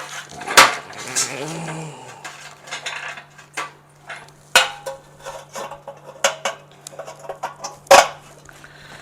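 Irregular metallic clinks and knocks as the replacement heating element and its seal fitting are worked and tightened into the sterilizer, with a few sharper metal strikes among them.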